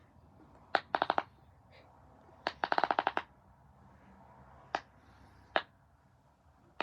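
Plastic fidget toy snapping in quick runs of sharp clicks: a short burst of four about a second in, a longer rattle of about a dozen near three seconds, then two single snaps.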